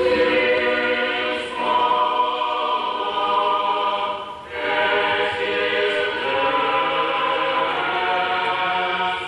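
Orthodox church choir singing a slow, unaccompanied chant in held chords, with a short break about four and a half seconds in. It is the choir's response to the priest's dismissal, at the close of the service.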